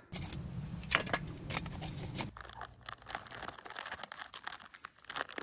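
Plastic bag rustling and crinkling as powdered pancake mix is shaken out of it into a bowl. The first two seconds are a steadier rustle, then a quick run of sharp crinkles.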